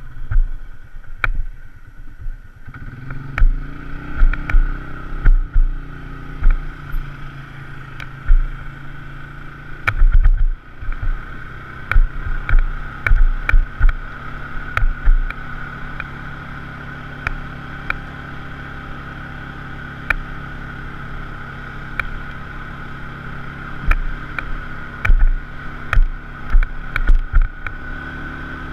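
Polaris RZR side-by-side engine running steadily while driving a rough dirt trail, with a steady high whine and frequent knocks and rattles from the bumps.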